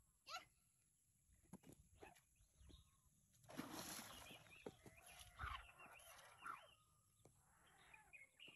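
A hooked fish thrashes at the lake surface, making a splash about three and a half seconds in. Short, scattered animal calls sound around it.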